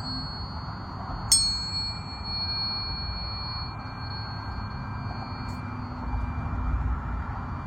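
Tuning forks being struck, each giving a sharp metallic ding and then a pure, high ringing tone that lingers. The loudest strike comes about a second in, and a fainter one follows a few seconds later.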